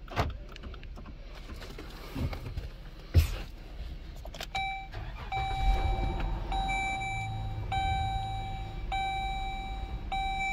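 A few sharp clicks, then the 2013 Dodge Journey's dashboard warning chime begins, a steady tone repeating about once a second. About halfway through, the engine starts and settles into a low idle under the chime.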